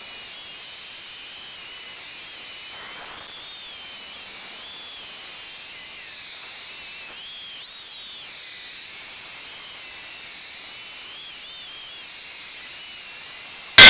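Ducted drone's electric motors and propellers whining, heard from its onboard camera over a steady hiss, the high whine wavering up and down in pitch.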